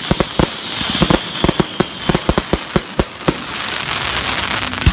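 Aerial fireworks display: a rapid, irregular string of sharp bangs from shells bursting overhead, giving way about three seconds in to a dense crackling hiss from burning stars, with one loud bang right at the end.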